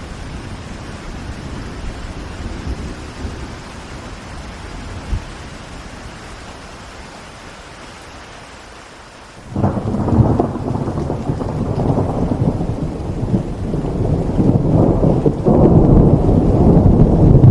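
Steady rain falling on city surfaces. About halfway through, thunder breaks in suddenly with a loud, deep rumble that rolls on and grows louder to the end.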